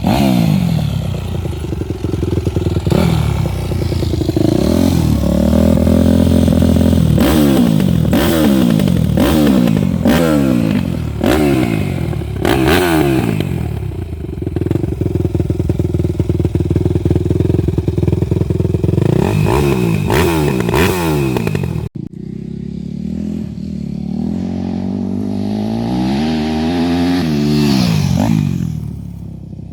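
Yamaha YZ250F's four-stroke single-cylinder motocross engine being ridden hard. Its note rises and falls over and over as the throttle is opened and shut through the gears, with a sudden break about two-thirds of the way through.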